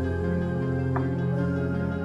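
Background music with steady, held chords.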